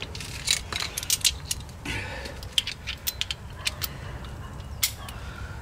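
Small metal clinks and clicks of hand tools being handled: a T55 Torx bit socket being picked up and fitted onto a ratchet, with many short, irregular clicks.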